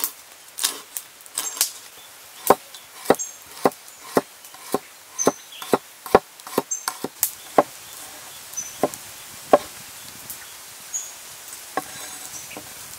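A heavy knife chopping fresh turmeric root on a wooden chopping board. The blade knocks sharply and irregularly, about two strokes a second, and gets sparser for the last few seconds.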